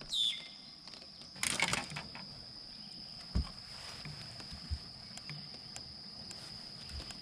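Steady high-pitched chirring of night insects such as crickets, with a short rustle about a second and a half in and a few soft knocks.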